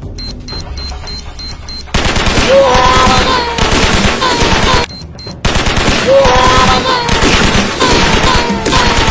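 Six short high beeps, then about two seconds in, a recording of rapid machine-gun fire with voices shouting over it. Near the middle the firing stops for a moment, two more beeps sound, and the burst starts again. This is the fake gunfire of a prank.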